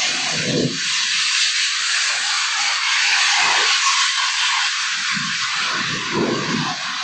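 The odd sounds recorded at One World Trade Center, heard through a processed, enhanced recording: a loud steady hiss with irregular low moaning swells rising and falling underneath, fuller near the start and again after about five seconds.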